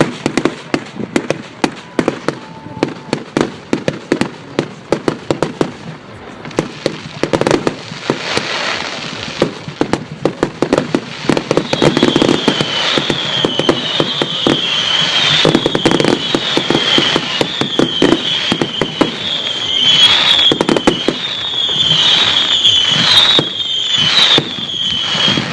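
Firework display: rapid bangs and crackling throughout. About halfway in, a high wavering whistle joins them and repeats again and again.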